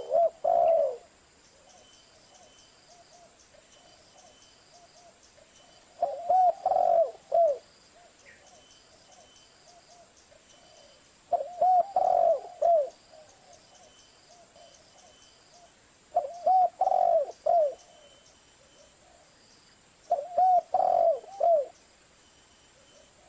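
Spotted dove (tekukur) cooing: five short phrases of three or four mellow notes each, repeated about every five seconds.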